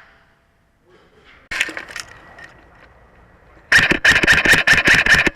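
G&P Defender MK18 airsoft electric rifle firing: a short burst of a few shots about a second and a half in, then a longer rapid burst lasting about a second and a half near the end.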